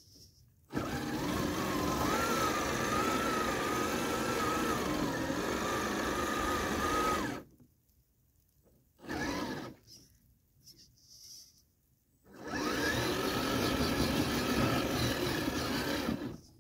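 Redcat Gen8 Scout RC crawler's electric motor and gears whining under throttle as it pushes its plow through snow, with a slightly wavering pitch. Two long runs of several seconds each, with a short blip of throttle between them.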